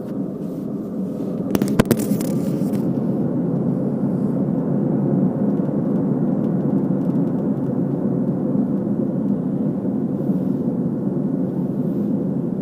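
Steady hum of road noise from the rear of a moving car, heard inside the cabin. The driver is unsure whether it comes from a worn rear wheel bearing or from the tyres. A short run of clicks comes about two seconds in.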